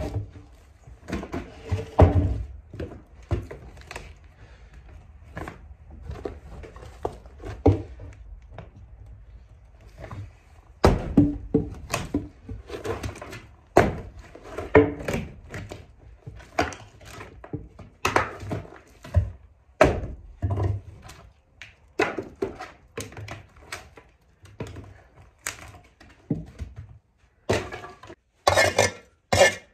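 Irregular thuds and knocks of a hand tool striking and prying rotten wood, with debris scraped and knocked loose along the bottom of an old wooden wall.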